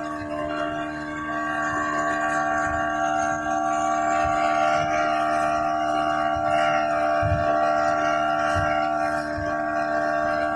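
Yamaha 40 hp outboard motor running at a steady, high speed, its pitch held even, with a few low thumps underneath.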